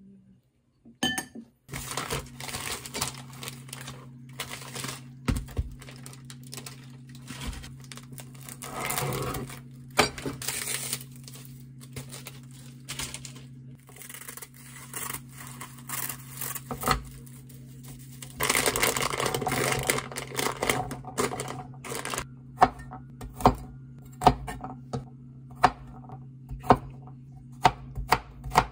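Kitchen scissors snipping and crinkling a sheet of dried laver (gim), then, in the last few seconds, a kitchen knife chopping garlic cloves on a wooden cutting board in sharp knocks about once a second, under a steady low hum.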